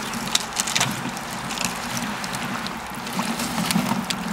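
Manual feed auger of a household anaerobic digester being turned, the wet slurry in the hopper sloshing and gurgling as food waste is drawn down, with scattered clicks and knocks.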